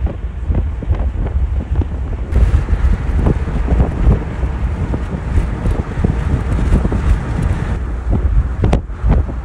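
Wind buffeting the microphone of a moving car, with a low rumble of road noise under it. The rushing turns brighter and hissier from about two seconds in until shortly before the end.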